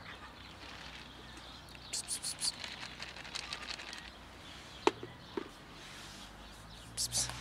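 Short rustles and clicks from a plastic food container being handled: a quick cluster about two seconds in, a single sharp click near the middle, and another cluster near the end.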